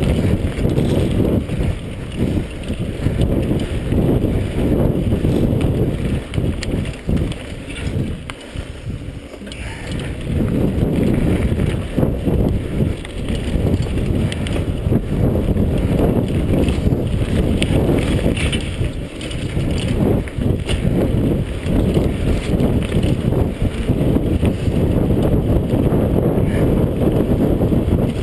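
Mountain bike riding downhill on a rough dirt singletrack: wind buffeting the microphone, mixed with the rattle and knocks of the bike over the bumpy trail. It eases off briefly about eight to ten seconds in.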